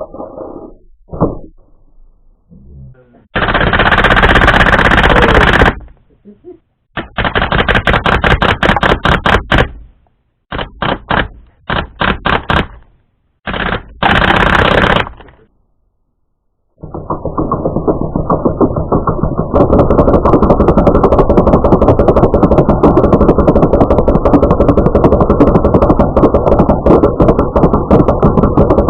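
Full-auto BB gun firing in rapid bursts: two bursts of a few seconds each, a string of short bursts, another short burst, then one long unbroken stream of fire lasting about twelve seconds.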